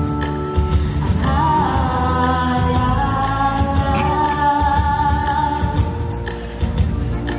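A woman sings a long held 'aaah' into a microphone over a pop backing track with a steady beat; the note starts about a second in and is held until near the end.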